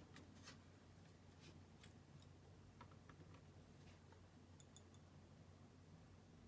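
Near silence: a low steady hum with a few faint, light clicks scattered through, including a quick cluster of small ticks about three seconds in and a couple of sharp high ticks near the end.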